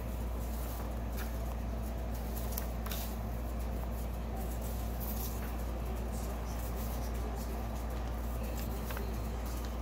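Sheets of drawing paper rustling as pages are turned over on a stack, a few brief soft rustles a couple of seconds apart over a steady low hum.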